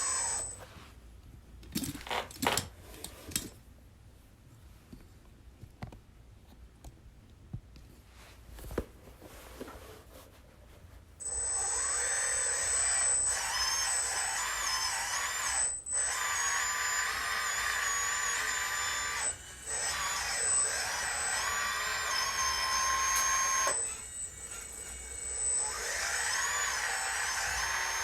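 Radio-controlled scale construction machines working: a few scattered clicks and knocks, then from about eleven seconds in a steady, high electric-motor whine whose pitch wavers as the machine moves. It cuts out briefly a couple of times.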